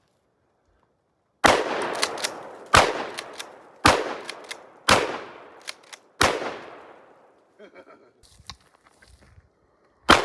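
Gun firing six shots: five in quick succession about a second apart, then one more near the end. Each shot trails off in a long outdoor echo.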